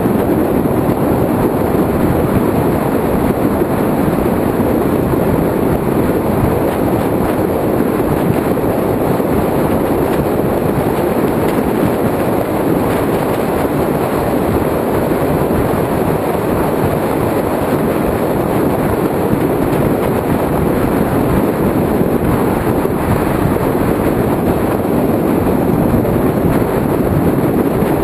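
Steady wind rush and road noise over a camera mounted on a Kawasaki ZX-6R sport bike riding at speed, with the bike's inline-four engine running underneath.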